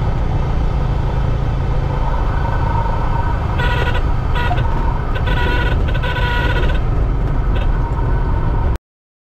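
Cessna 172 cabin noise during a landing: a steady engine and airflow rumble, with a high horn-like tone sounding on and off in the middle, typical of the stall warning horn in the flare. The sound cuts off abruptly near the end.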